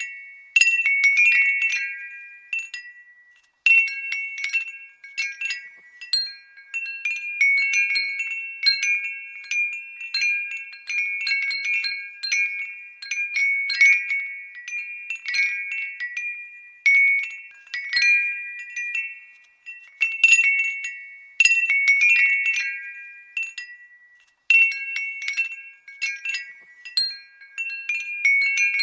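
Glass windbell (fūrin-style glass wind chime) tinkling: irregular clusters of bright, high ringing strikes, each decaying before the next, with short lulls between gusts.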